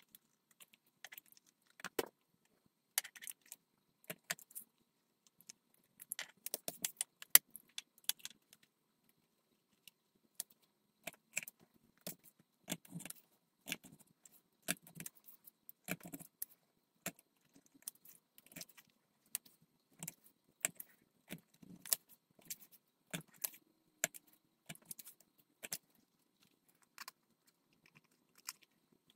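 Flat cut-out frame pieces being shuffled, slid and set down on a stone countertop, making irregular light taps and clicks.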